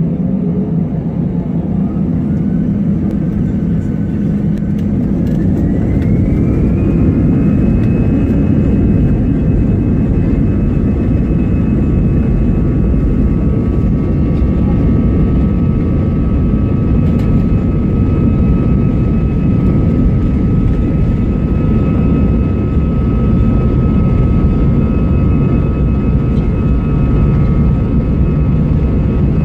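Airbus A320 turbofan engines spooling up to takeoff thrust. A whine rises in pitch over about five seconds, then holds steady over a loud, constant rumble through the takeoff roll.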